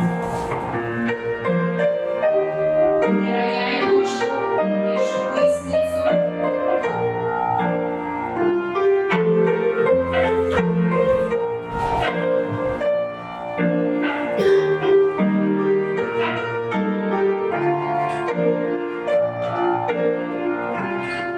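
Piano playing a rhythmic dance tune with changing chords, with occasional short sharp taps over it.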